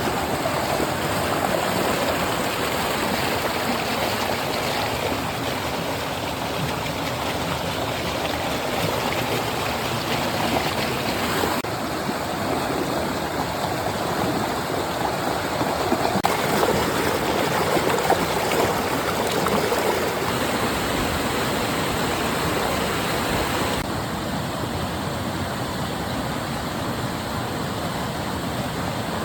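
Flowing water: a stream running steadily, with small shifts in its tone a few times.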